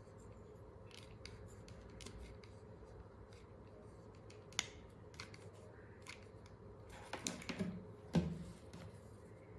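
Hot glue gun and hands working at a table: a few faint clicks while glue is run along a metal hair clip, one sharper click midway, then a cluster of knocks and rustling near the end, the loudest a single knock, as the gun is set down and a felt strip picked up.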